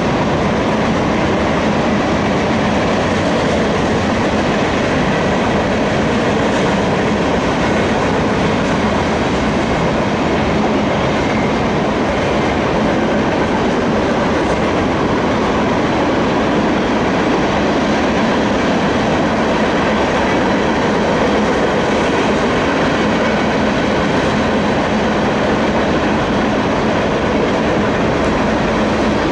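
Freight train cars rolling past at a steady speed: the continuous, even rumble and rattle of steel wheels on the rails and the cars themselves.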